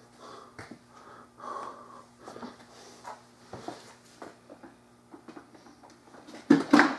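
A man breathing heavily, with a few small clicks and scuffs over a steady low hum. Near the end come loud clunks and rattles as the electric pressure washer is taken hold of.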